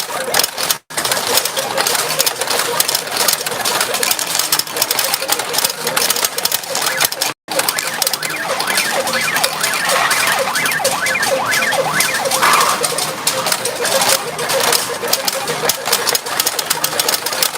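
Retro pachinko machine in play: a dense, rapid clatter of steel balls being shot and rattling through the machine, mixed with its electronic tones. The sound cuts out briefly twice.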